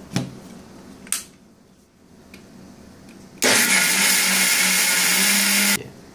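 Electric mixer-grinder (blender) running in a short burst of about two and a half seconds, grinding soaked rice with water, red chillies and cumin into a coarse batter; it starts abruptly and cuts off. A couple of light clicks come before it.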